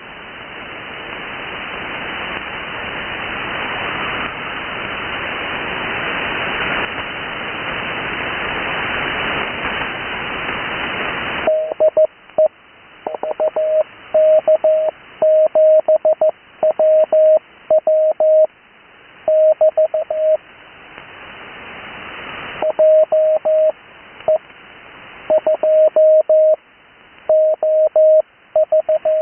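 Radio receiver hiss with no signal, slowly growing louder. About eleven seconds in, a steady mid-pitched Morse code (CW) tone starts, keyed in characters with clear gaps between them. The keying pauses for a couple of seconds two-thirds of the way through, the hiss swelling back, then resumes.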